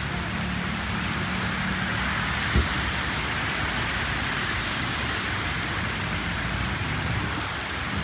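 Heavy rain falling steadily, mixed with the hiss of car tyres on the wet road. A brief low thump about two and a half seconds in.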